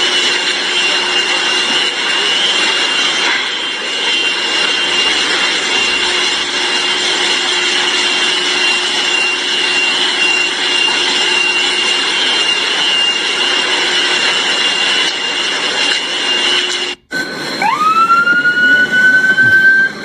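Loud rushing noise with a steady high-pitched tone running through it. After a sudden break about seventeen seconds in, an emergency vehicle siren winds up in a rising whine and holds.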